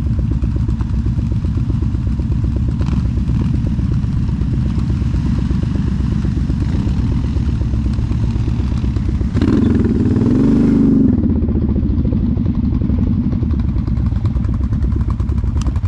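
ATV engines running steadily, with one engine revving up and back down about ten seconds in.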